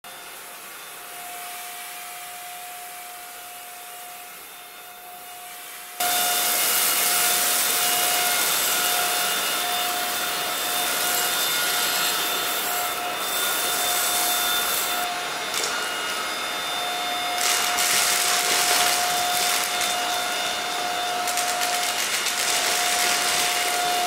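Alfawise AR182BLDC cordless stick vacuum running over carpet with a steady high motor whine and rushing suction. About six seconds in it suddenly gets much louder. Later there are spells of rapid clicking as spilled debris is drawn up.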